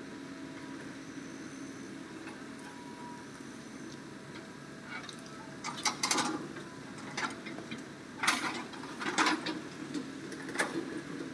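Hitachi excavator's diesel engine running steadily, then from about six seconds in a run of loud, crashing clatters as quarry stone tips from the bucket into the steel bed of a dump truck.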